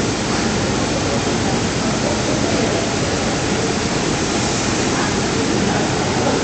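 Jet aircraft engine noise on the airport apron, a steady, loud, even rush, most likely from the Merpati Fokker 28 jet airliner close by.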